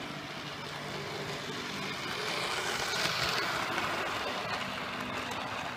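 Model diesel locomotive's small electric motor and wheels running on the rails, growing louder as the train nears and passes close, loudest about three seconds in.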